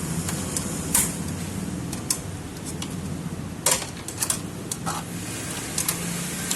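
Scattered sharp metallic clicks and clinks of hand tools and parts being handled during exhaust silencer work, a handful of separate strikes over a steady low hum.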